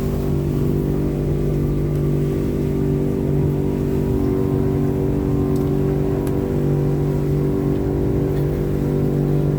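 Passenger speedboat's outboard motor running steadily under way, a constant engine hum.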